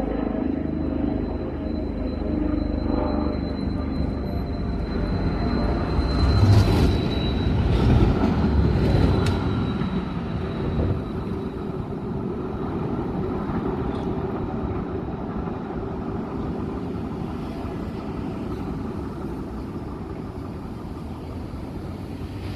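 Tram running along the street on its rails: a steady rumble with a faint high squeal, loudest with some clatter about seven to nine seconds in, then slowly fading.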